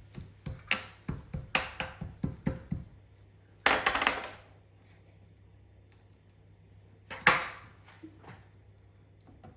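Metal spoon clinking against a pan: a quick run of clicks with short metallic ringing in the first three seconds, then two louder, noisier scrapes about four and seven seconds in, over a faint steady low hum.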